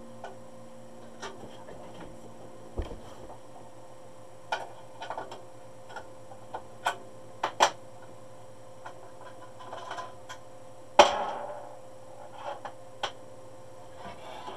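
Scattered clicks and knocks of a red cap driver being worked loose and lifted off an embroidery machine, with one louder clunk about eleven seconds in that rings briefly. A steady low hum runs underneath.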